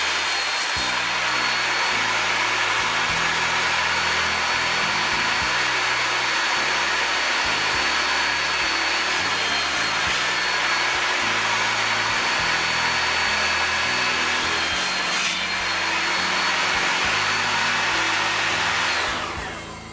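Skil TS6307 10-inch table saw running at full speed with a steady high whine while crosscutting wood on a sled, then spinning down near the end as it is switched off.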